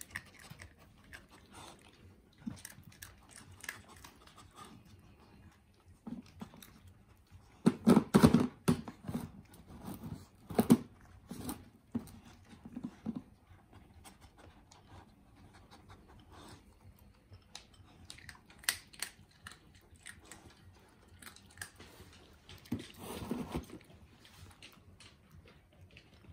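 Dogs crunching dry kibble, with small scattered clicks of pellets in and against a bowl. There are louder spells of noise about a third of the way in, again a little later, and near the end.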